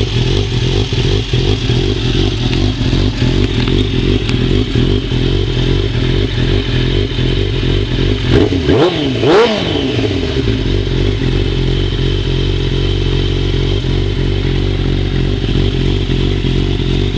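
Suzuki GSX-R motorcycle engine idling through an aftermarket Cannon exhaust, blipped twice in quick succession about halfway through, the pitch rising and falling each time before settling back to idle.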